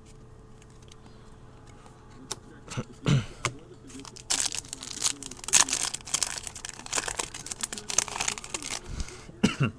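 Foil wrapper of a football card pack crinkling and tearing as it is ripped open, for about four and a half seconds. A few sharp clicks and knocks of handling come before it and near the end.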